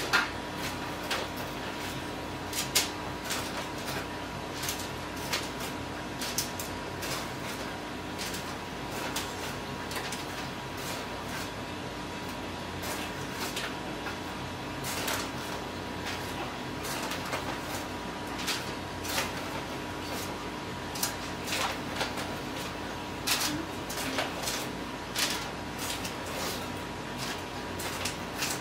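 Clear plastic bag crinkling and rustling, with an irregular run of light clicks and taps as mini tacos are pulled out by hand and set on a parchment-lined pan, over a steady hum.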